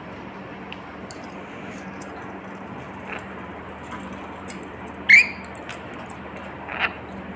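A pet lory parrot giving one sharp, short squawk about five seconds in and a fainter squeak near the end, over a steady hiss and low hum.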